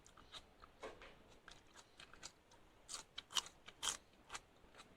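A person chewing raw shallots: faint, irregular crisp crunching clicks, busiest and loudest about three to four seconds in.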